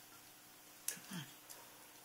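Faint, sharp clicks of an umbrella cockatoo's beak biting on a pencil, the loudest about a second in, followed at once by a brief low sound falling in pitch, then a softer click.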